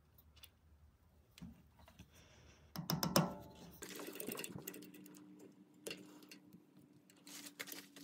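Light clicks and taps of a stamped copper cap being handled and fitted against a turned walnut knob, with a louder cluster of clicks and knocks about three seconds in. After that comes a faint steady hum with scattered clicks.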